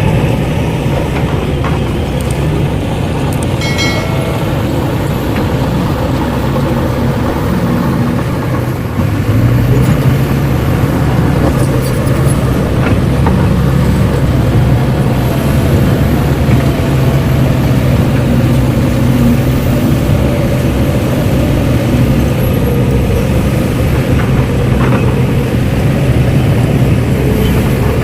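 Steady low motor drone from radio-controlled construction models, an excavator and a dump truck, at work; it gets louder and stronger about nine seconds in.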